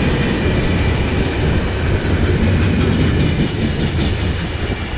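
Mauritanian iron-ore train's hopper wagons rolling past on the rails: a steady, loud, low rumble of the wheels and wagons.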